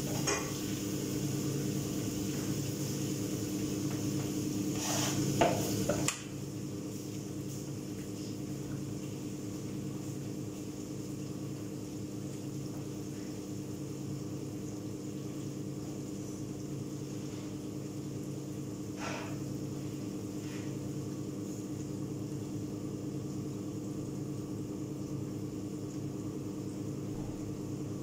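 Steady hum of a kitchen range hood fan. For the first six seconds eggplant frying in a pan sizzles, with a few clinks of a utensil against the pan; the sizzle then cuts off suddenly and the hum goes on alone, with a couple of faint clatters later.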